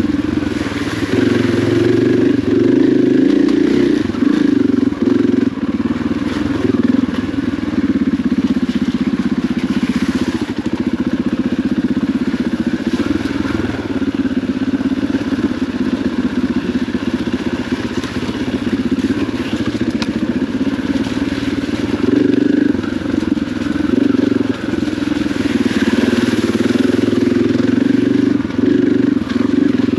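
KTM dirt bike engine running continuously as the bike is ridden along a muddy trail, the engine note rising and falling with the throttle.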